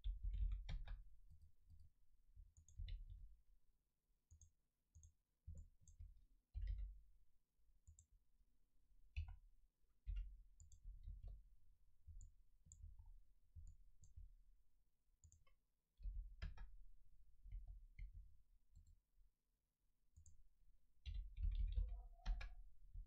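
Faint, irregular computer mouse clicks and keyboard taps, with soft low thumps, from someone working at a desk.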